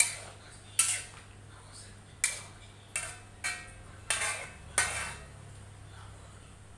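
A metal utensil clinking and scraping against a cooking pot while food is stirred: about seven ringing strikes in the first five seconds, then it stops.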